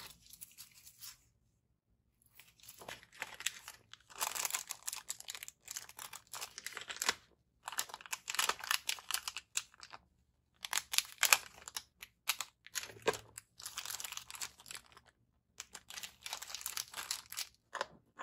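Packaging being handled and unwrapped: crinkling, rustling and tearing in bursts a second or more long, with brief pauses between.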